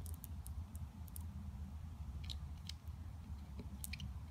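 Faint, irregular crisp clicks of an African lined mantis chewing through a cockroach's exoskeleton, over a steady low hum.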